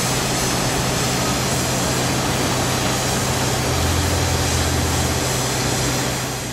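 Caterpillar wheel loader's diesel engine running steadily, with a deeper low note swelling for a second or so about four seconds in, then fading near the end.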